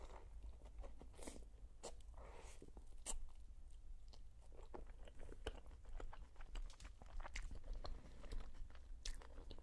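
Close-miked eating of khinkali (Georgian dumplings): irregular wet chewing with crisp crunches and small crackles, from biting and chewing a fried dumpling's browned dough.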